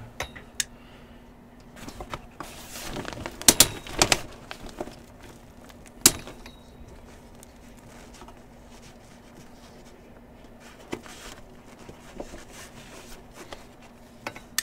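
Scattered clicks and knocks of objects being handled on a table, with a cluster of sharp knocks about three to four seconds in and one more about six seconds in, over a faint steady hum.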